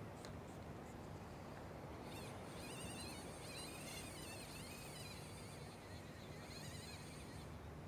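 Faint outdoor ambience: high, insect-like chirring and warbling calls over a low, steady rumble.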